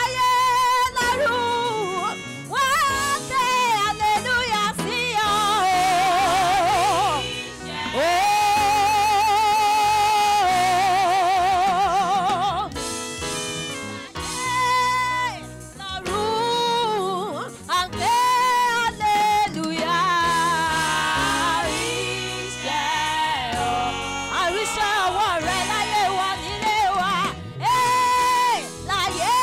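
A woman singing a gospel song into a microphone, holding long notes with wide vibrato over musical accompaniment.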